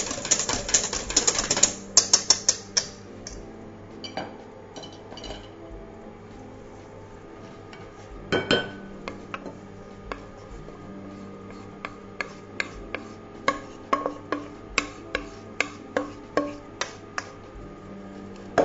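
Kitchen utensils working two bowls. Whipped egg whites are scraped out of a steel mixing bowl, with a dense scraping noise at first and a louder knock partway through. Then a wooden spoon stirs them into the dry mix in a glass bowl, tapping against the glass about twice a second near the end.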